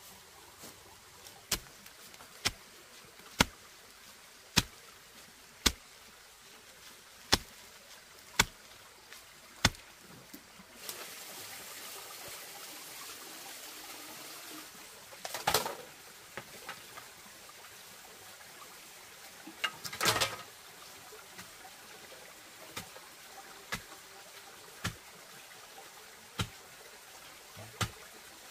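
Sharp single knocks of bamboo being worked by hand, about one a second. In the middle comes a few seconds of rustling and two louder crunches in dry bamboo litter, then fainter knocks return.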